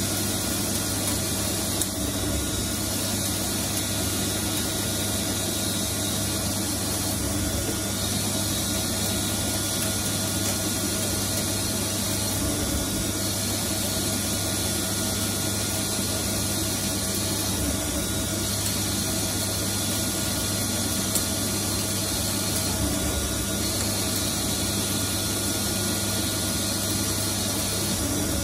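CNC lathe running while turning a steel part: a steady mechanical hum and hiss, with a faint change in the sound recurring about every five seconds.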